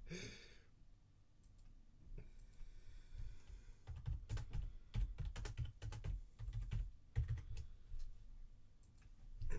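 A run of light clicks and taps, with a cluster of low knocks between about four and seven and a half seconds in, as of things being handled and set down on a desk.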